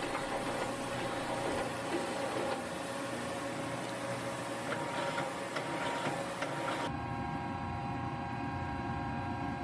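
Miyano BNC-34T CNC lathe completing its homing cycle: a steady mechanical whir and hiss with a few light clicks about five to six seconds in as the twin turret cycles. Near the end the sound changes abruptly to a steady hum.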